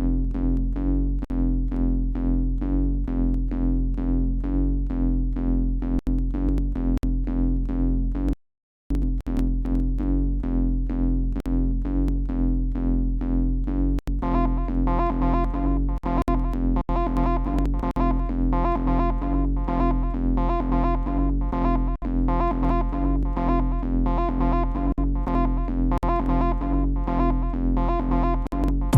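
Electronic synth pad and bass loop from a groove-pad music app, a held low chord pulsing in a steady rhythm without drums. It drops out for a moment about a third of the way in, and a higher synth line joins about halfway through.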